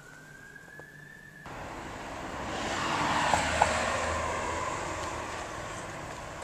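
A faint high tone rising slowly in pitch, cut off about a second and a half in by outdoor street sound: a passing vehicle that swells to a peak about three seconds in and slowly fades, with a couple of light clicks near its loudest.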